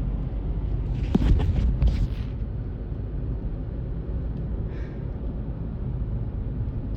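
Steady low rumble of a car's road and engine noise heard from inside the moving car, with a few short knocks and rustles between about one and two seconds in.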